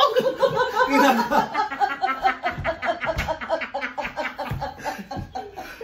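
Women laughing hard together: a fast, rhythmic run of ha-ha pulses that keeps going without a break.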